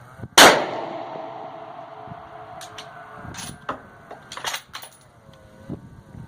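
A single 6.5 Creedmoor rifle shot from a Savage Axis II bolt-action, loud under a range overhang with a long echoing tail. A couple of seconds later come several metallic clicks and clacks as the bolt is worked.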